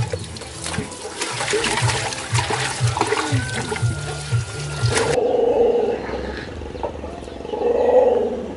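Water running and splashing, with knocks and clatter from a metal pot, as a plucked chicken is washed in a plastic basin. About five seconds in the water sound stops, and a lower sound swells to its loudest near the end.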